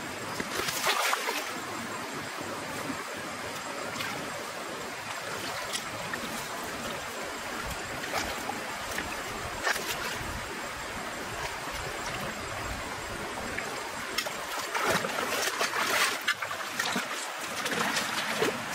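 Shallow muddy water sloshing and splashing as taro plants are pulled up and dug out by hand. Louder, irregular splashes come about a second in and again near the end.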